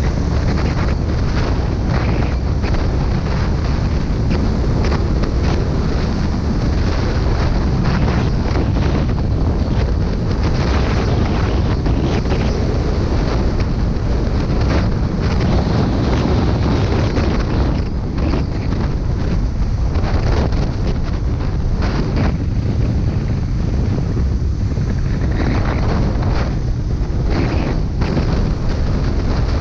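Heavy wind buffeting the microphone on a moving motorcycle, a dense, gusty rumble that covers the ride, with the Honda CB250N Superdream's engine not clearly heard under it.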